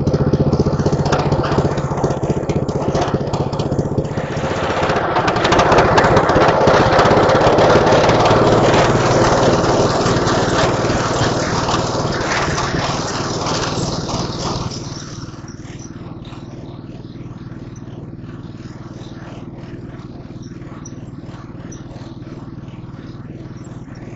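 The small engine of an early-1970s Mowett Mustang riding mower running as it is driven, with the deck and blade off. It grows louder a few seconds in, then drops and evens out about two-thirds of the way through.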